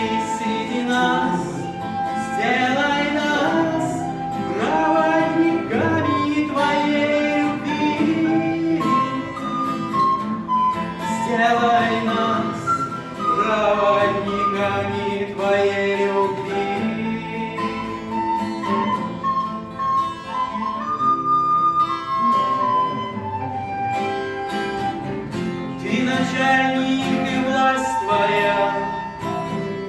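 Instrumental music with acoustic guitar and a flute-like melody, its notes gliding and holding over sustained chords.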